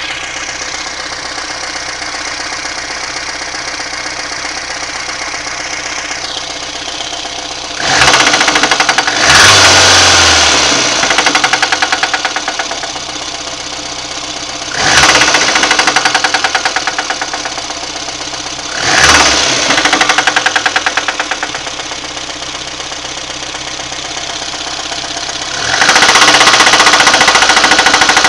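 VAZ 2110's 1.5-litre eight-valve engine running with a rhythmic knock, the owner unsure of its cause. It idles for several seconds, is revved briefly four times, then is held at higher revs near the end.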